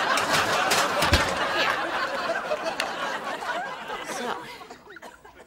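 Studio audience laughing at a joke, the laughter dying away about four and a half seconds in.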